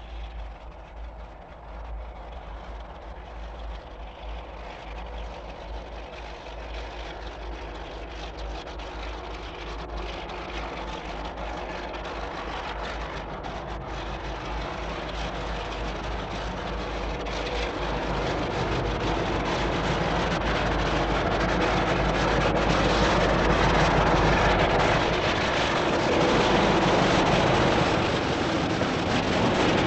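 Class 33 diesel locomotive, its Sulzer eight-cylinder engine running under load, passing with a freight train of steel billets on flat wagons; the sound grows steadily louder over about twenty seconds as the train approaches and draws level. A steady low hum lies underneath throughout.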